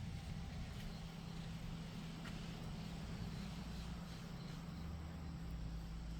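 A steady low mechanical hum with a faint even hiss over it, and one small click about two seconds in.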